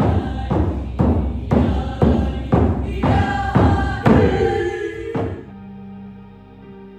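Hand-held frame drum beaten steadily, about two strokes a second, under group singing. About five seconds in it cuts off suddenly and soft ambient music with sustained tones takes over.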